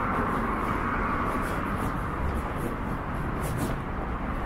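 City street ambience: a steady wash of traffic noise, with no single event standing out.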